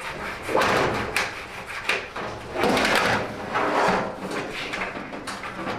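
Samsung dryer parts being handled and pulled free during disassembly: several short scraping, sliding noises with a few knocks.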